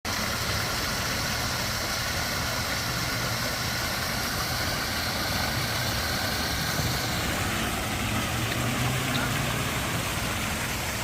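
Steady street ambience with a vehicle engine idling: an even low hum under a constant background hiss.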